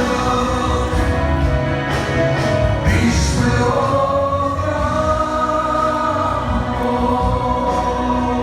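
Gospel music: a group of voices singing held notes over instrumental backing with a heavy bass and drum hits.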